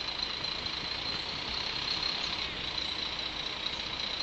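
Heavy vehicle's engine idling steadily, with a constant high-pitched whine over it.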